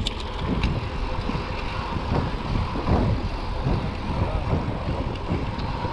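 Wind buffeting the microphone of a camera riding on a moving mountain bike, a gusty low rumble mixed with tyre noise on asphalt.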